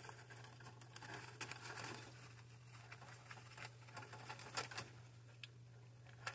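Faint rustling and a few soft clicks from gloved hands handling wire harnesses and plastic plug connectors on a furnace control board, over a steady low hum.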